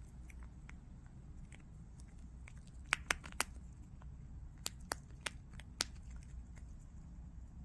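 Prairie dog crunching a hard biscuit treat: a string of sharp, short crunches from about three to six seconds in, over a low steady hum.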